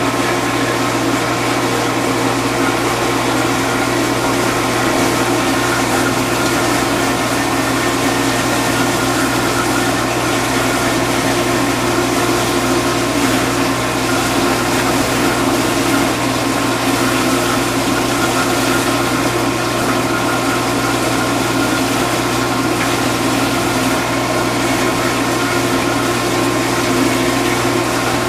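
Vintage KitchenAid KDS-18 dishwasher running a wash cycle with its door open: a steady motor and pump hum under the hiss of spraying water.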